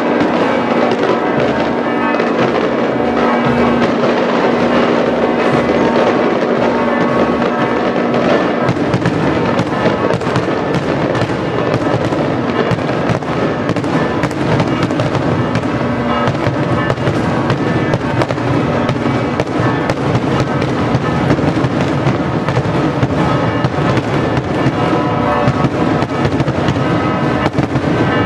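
Daytime festa fireworks: a dense, unbroken barrage of aerial shells and firecrackers going off, with bangs and crackles overlapping. Church bells ring underneath for roughly the first eight seconds.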